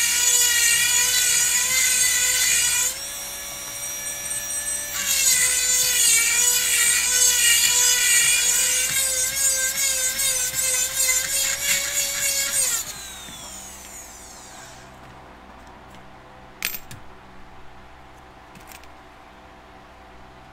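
Jeweller's electric micromotor handpiece spinning at high speed with a steady high-pitched whine, its pitch shifting slightly as it bears on the workpiece. About 13 s in it is switched off and winds down in a falling whine, followed by a few light clicks.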